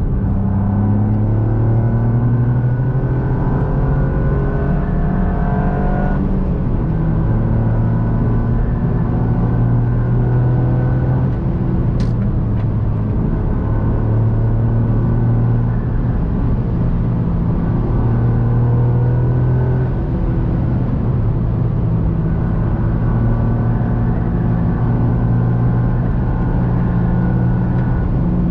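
Toyota GR Yaris's turbocharged three-cylinder engine being driven hard on a race circuit. The revs climb and drop back at gear changes. A single sharp click comes about twelve seconds in.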